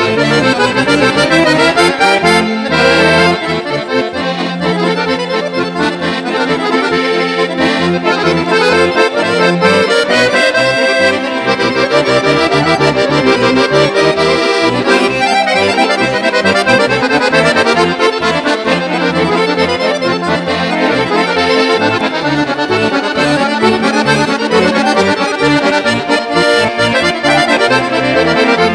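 Two button accordions playing quick runs of notes with a string quartet of two violins, viola and cello.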